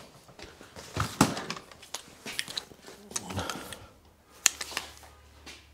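Hand tools clinking and knocking on metal engine parts: a scatter of sharp clicks and knocks, the loudest about a second in and again near the end, with brief scraping between them.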